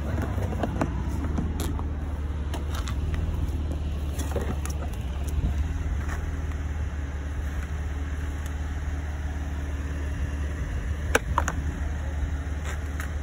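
A motor vehicle running with a steady low rumble, with a few sharp clicks and knocks, the clearest about eleven seconds in.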